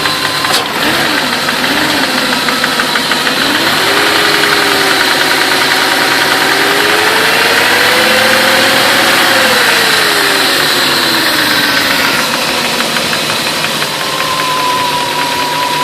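BMW M60 V8 engine running, revved up from idle. The revs climb a few seconds in, hold and creep higher, then fall back toward idle about three-quarters through. A lifter tick runs under it, the lifter noise the owner is showing.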